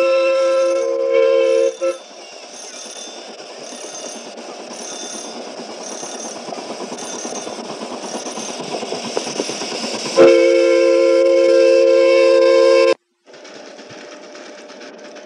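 Miniature steam locomotive's chime whistle sounding a steady chord of several notes, which stops about two seconds in. The train's running noise then grows louder until the whistle sounds the same chord again for about three seconds and is cut off abruptly, followed by a fainter steady running noise.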